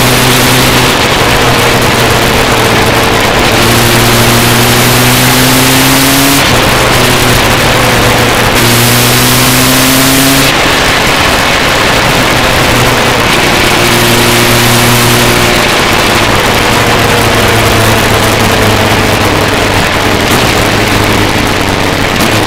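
Motorcycle engine pulling through the gears, its pitch rising and dropping back at a few gear changes, under heavy wind rush on the onboard camera's microphone.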